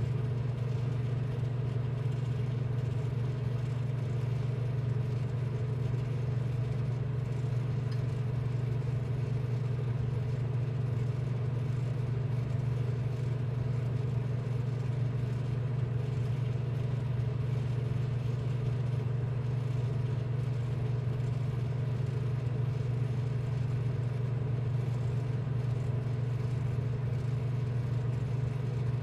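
A steady, unchanging low machine hum, with fainter constant tones higher up.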